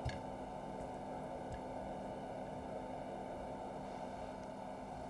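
Room tone: a steady low hiss and electrical hum, with a couple of faint clicks.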